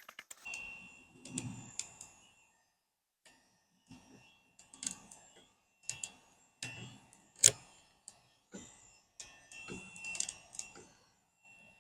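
Scattered light clicks, taps and short soft scrapes of hands and a squeegee working a vinyl decal down onto the car, with brief silent gaps between them.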